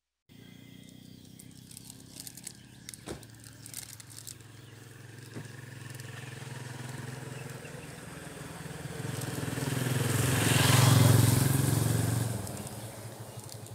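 A motor vehicle passing by outdoors: its engine noise builds slowly, is loudest near the end, then fades quickly, over faint background noise with a few scattered clicks.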